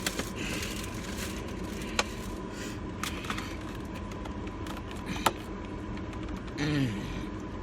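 A few sharp clicks and taps, as of a fork and plastic takeout container being handled, over steady background noise. Near the end comes a short hum with falling pitch.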